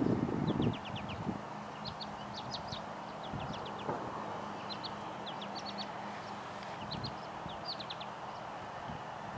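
Male American goldfinch singing short runs of quick, high twittering notes, one run about every second. Wind buffets the microphone throughout and is loudest in the first second.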